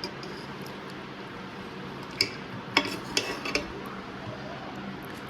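Four or so sharp metal clinks of a spoon against a cooking pot over a steady background hiss.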